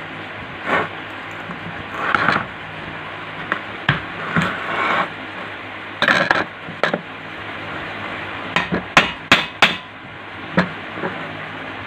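Irregular metal knocks, taps and scrapes of hand tools working on a small tullu water pump as it is taken apart, with a quick run of sharp taps about nine seconds in.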